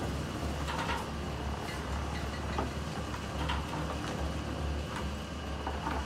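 A concrete mixer running with a steady low drone that pulses slowly, over scattered clinks and knocks of construction work, about one every second.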